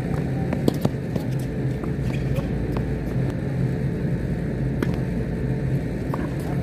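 Tennis balls struck by rackets in a doubles rally and serve: a series of sharp pops, the loudest just under a second in and another near five seconds, over a steady low hum.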